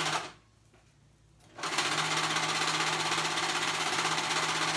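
Serger (overlocker) stitching a cotton-lycra band onto a pocket edge: a steady fast-running machine sound with a constant low hum. It stops just after the start and runs again from about a second and a half in.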